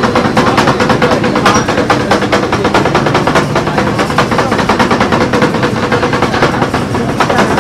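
Two steel spatulas chopping and mashing rolled ice cream mix on a chilled metal pan: a rapid, steady run of sharp metal clacks against the plate, several a second.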